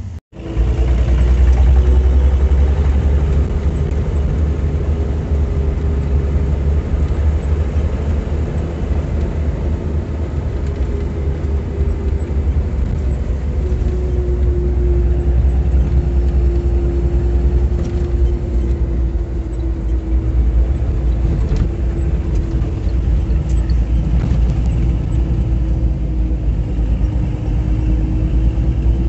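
Driving noise heard inside a moving vehicle's cabin: a loud, steady low engine and road rumble with a droning tone that wavers slightly in pitch.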